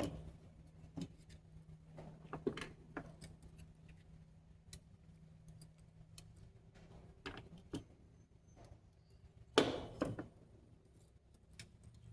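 Scattered light clicks and taps of small hand tools and parts on a workbench while a kit circuit board is being soldered, the loudest two about ten seconds in, over a faint steady low hum.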